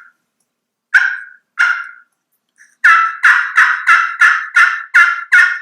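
Slate turkey call worked with a striker: two single sharp clucks, then a quick run of about nine notes at roughly three a second.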